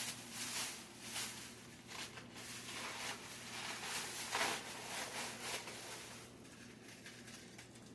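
Lettuce leaves being handled and laid down, irregular crisp rustling and crinkling that dies away about six seconds in.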